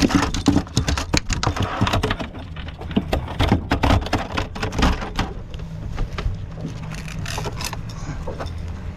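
Rapid, irregular knocks and rattles of handling gear on a small fishing boat for about the first five seconds, giving way to a steady low hum of the boat's idling outboard motor.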